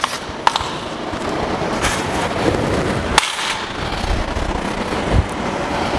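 Steady workshop noise with a few sharp metallic clicks and clinks, the clearest about half a second and about three seconds in.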